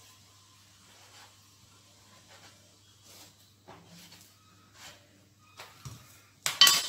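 A kitchen knife cutting through the firm, thick-skinned green breadfruit: faint scrapes and small crunches at irregular intervals, over a low steady hum.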